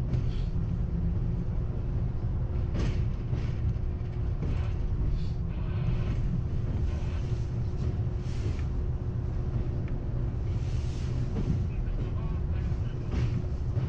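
R62A subway train running on the 7 line: a steady low rumble of wheels on rail with a constant hum, broken by several brief sharp clatters.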